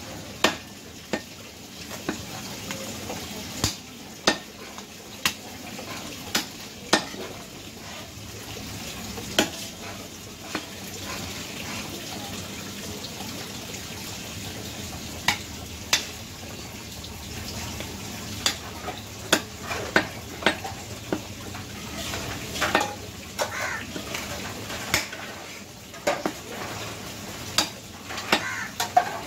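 Heavy butcher's cleaver chopping goat meat and bone on a round wooden chopping block. The chops are sharp and irregular, a second or more apart at first and coming in quicker bunches in the second half, over a steady background noise.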